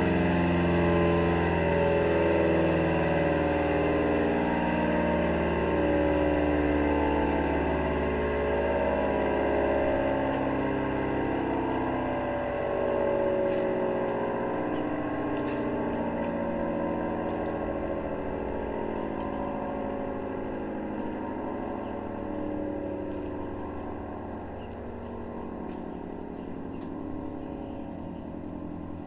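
ACA Allertor 125 siren sounding its chord of several steady tones, wavering slowly in level and fading steadily as it winds down.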